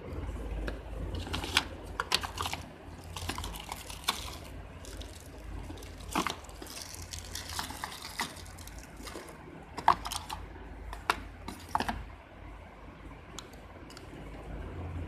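Handling noise: scattered sharp plastic clicks and short rustles as a mobile phone handset and its cardboard packaging are handled, with the loudest click about ten seconds in.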